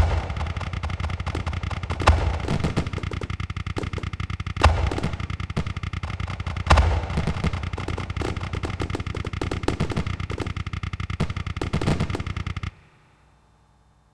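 Fireworks going off in a long, rapid run of sharp bangs, with a few louder booms about 2, 5 and 7 seconds in. The run stops abruptly near the end.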